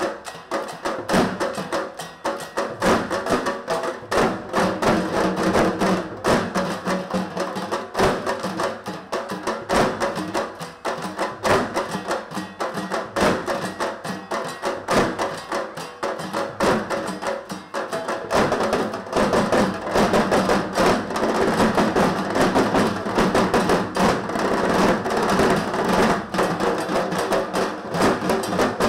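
A group of dhak drums, the large barrel drums of Bengal, beaten with thin sticks in a fast, dense rhythm. The playing gets louder and fuller about two-thirds of the way through.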